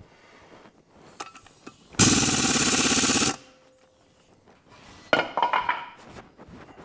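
Pneumatic impact wrench hammering on a bolt in a trailer brake drum in one burst of just over a second, about two seconds in. A short metallic clatter with some ringing follows near the end.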